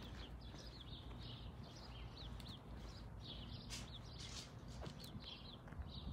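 Small birds chirping: short high calls repeating a few times a second, over a faint steady low rumble.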